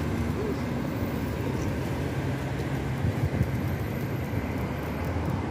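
Steady low rumble of street traffic and city noise.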